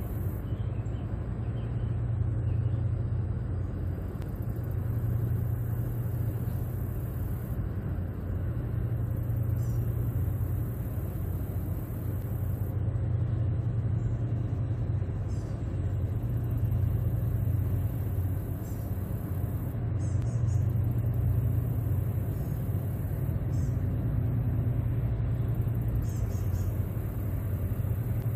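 Towboat diesel engines pushing a loaded barge tow upriver: a steady, deep rumble.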